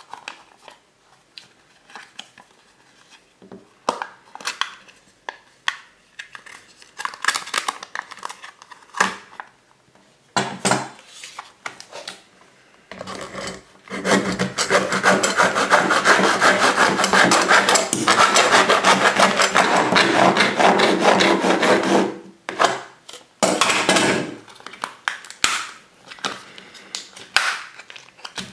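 A plastic cream cheese tub handled and tapped on a wooden table, then a long blade sawing through the tub for about nine seconds around the middle, the loudest and steadiest part. Short scrapes and cracks of the cut tub being handled follow.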